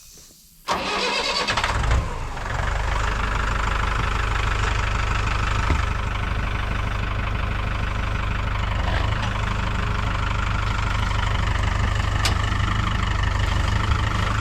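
A vehicle engine cranks and catches about a second in, then idles steadily.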